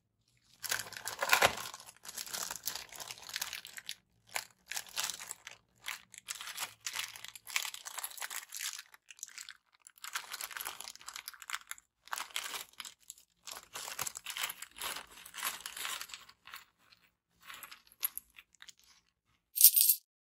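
Plastic packaging crinkling and rustling in irregular bursts as electronic kit parts are unpacked and handled, with a short, louder, sharper burst near the end.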